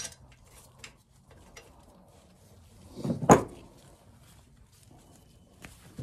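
Gloved hands handling exhaust heat wrap around a motorcycle exhaust pipe: scattered light clicks and rustles, with one louder thump about three seconds in.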